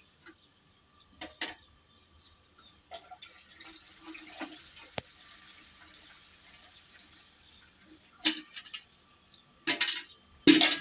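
Milk poured from a steel pot through a strainer into a steel vessel, a soft steady trickle in the middle. Steel pots and the strainer clank against each other twice early on and several times near the end, the last clank the loudest.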